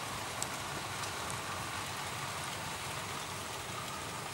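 00 gauge model freight train running past: a steady rush of wagon wheels rolling on the track, with a few faint clicks.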